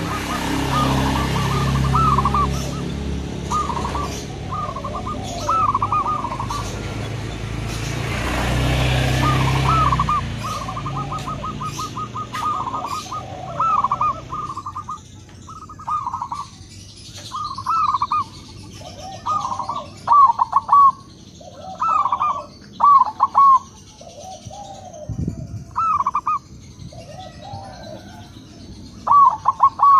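Zebra doves (perkutut) cooing, giving repeated short, rolling, trilled coo phrases, with lower-pitched phrases from another dove answering in between. A low rumble and hiss sit under the calls for about the first half, then stop.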